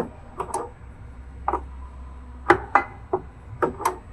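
Irregular clicks and knocks of hand tools and fittings as a temperature sensor is worked loose from a hydraulic pump's tank, about nine in all with a quiet hum beneath.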